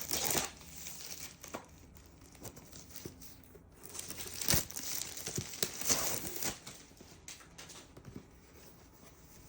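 Packaging being torn open and crinkled by hand as a diamond painting kit is unwrapped. It comes in irregular bursts with quieter handling between, loudest at the start and again around the middle.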